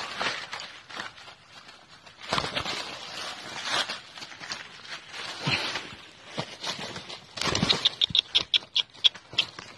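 Dry bamboo leaves rustling and crackling in irregular bursts as a wild junglefowl rooster struggles in the litter and a hand grabs at it. Near the end comes a quick run of short, high chirps, about eight a second.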